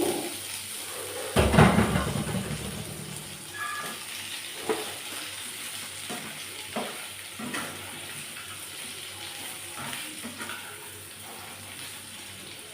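Chopped garlic sizzling in hot oil in a pan while it is stirred, the spatula scraping and knocking against the pan now and then. The loudest knock and scrape comes about a second and a half in.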